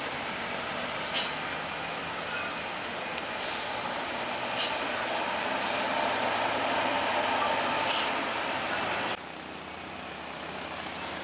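Heavy DAF trucks running along the road, with three short sharp hisses, typical of air brakes. The sound drops suddenly near the end.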